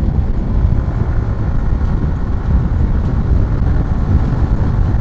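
Wind rushing over the microphone of a moving motorcycle, with the Yamaha R15 V4's 155 cc single-cylinder engine running underneath at steady cruising.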